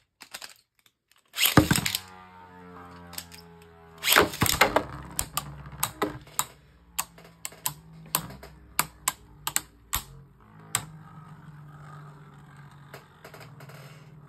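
Beyblade Burst spinning tops launched into a plastic stadium: a loud zip of the ripcord launch with a whir that falls in pitch, and a second loud launch about four seconds in. Then a quick run of sharp clacks as the spinning tops hit each other and the stadium wall, settling into a steady spinning hum near the end.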